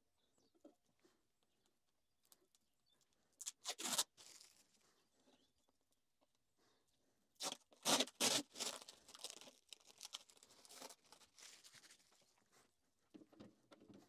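Something being peeled or torn off the milling machine's head by hand: two spells of tearing and crinkling, a short one about four seconds in and a longer, broken one from about seven and a half to eleven seconds.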